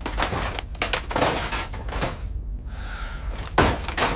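A run of knocks and clatter over a steady low rumble, with the loudest bang about three and a half seconds in.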